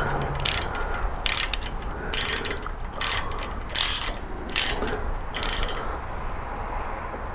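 Socket ratchet wrench worked back and forth to tighten a bolt on a motorcycle front fork: about eight short clicking bursts, one on each return stroke, stopping about six seconds in.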